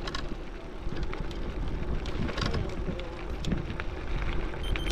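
Electric gravel bike riding along a rough track: steady tyre and frame noise with scattered clicks and rattles, wind on the microphone, and a faint steady hum underneath.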